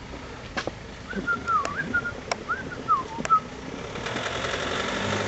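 A few whistled notes gliding up and down for about two seconds, over scattered light clicks and knocks. From about four seconds in, the rushing noise of an approaching car grows steadily louder.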